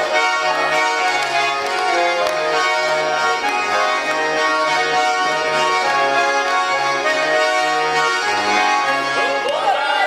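Russian garmon (diatonic button accordion) playing a lively folk dance tune, with chorded melody over a steady bass pulse. Voices start singing right at the end.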